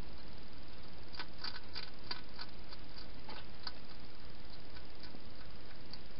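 Hedgehog eating from a bowl: a run of small, irregular clicks of chewing, thickest about a second in and sparser after, over a steady hiss.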